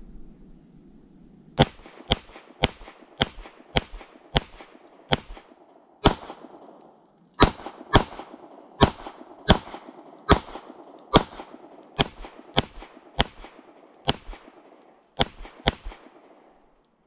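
Springfield Armory Prodigy 9mm pistol fired rapidly, about twenty shots at roughly two a second. The firing starts about a second and a half in, pauses briefly near the middle and stops a second before the end, each shot with a short echo.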